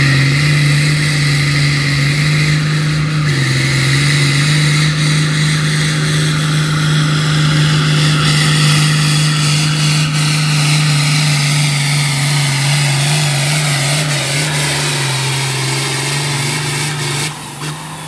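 International Harvester 1256's turbocharged diesel engine pulling a sled under heavy load, holding a steady high speed with a high whine above the engine note. About seventeen seconds in, the engine drops off as the pull ends.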